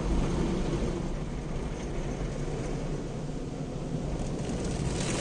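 Automatic car wash spraying foam and water over the car, heard from inside the cabin as a steady rushing noise with a low rumble.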